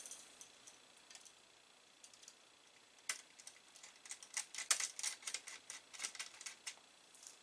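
A quick, irregular run of light clicks and clinks of small metal hardware being handled, starting about three seconds in and going on for several seconds. The hardware is the Amiga 1200's connector screw posts being picked out of a tray and fitted.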